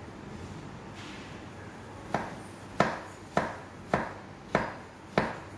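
Six sharp knocks at a steady pace, about two every second and a bit, starting about two seconds in; the first two seconds hold only a low steady room hum.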